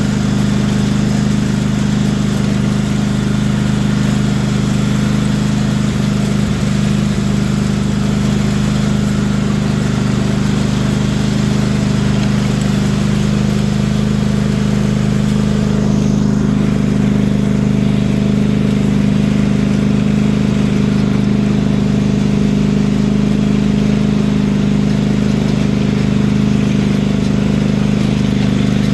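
Riding lawn mower's engine running steadily through a makeshift pipe taken from a truck exhaust.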